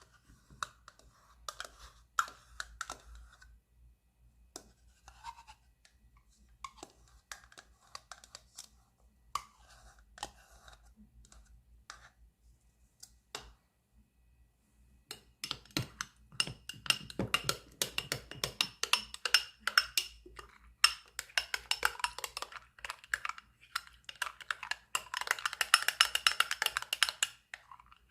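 A kitchen utensil clicking and scraping against a bowl during food preparation. It is sparse and intermittent at first, then about halfway through becomes a rapid, continuous run of clicks, like beating or stirring, that grows louder toward the end.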